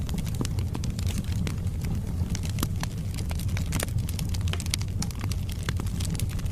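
Wood fire burning in a fireplace: a steady low rumble of flames with frequent sharp crackles and pops from the burning logs.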